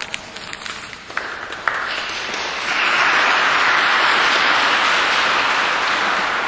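Audience applauding: a few scattered claps at first, building into full applause about two seconds in and easing off near the end.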